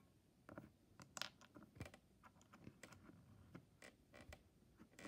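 Near silence with faint, scattered small clicks and scrapes of small plastic toy animal figures being handled and moved.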